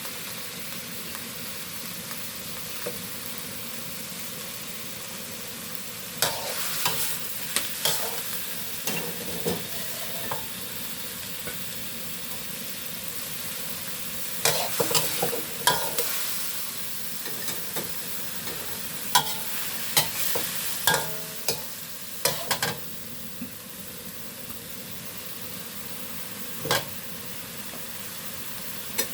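Food sizzling steadily in a hot pan while it is stir-fried, with clusters of sharp scrapes and clacks from the spatula against the pan at several points.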